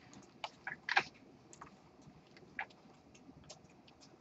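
Faint, irregular clicks and light taps, with the loudest cluster about a second in.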